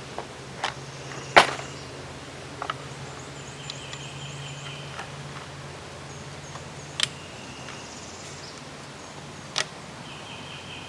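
Sharp clicks and clacks of a 20-gauge shotgun being handled and loaded with slugs, with one much louder clack about a second and a half in and a few lighter clicks later. Faint bird chirps in the background.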